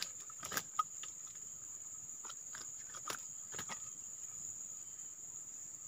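Steady high-pitched insect drone, with a few faint clicks and rustles from fishing line and tackle being handled.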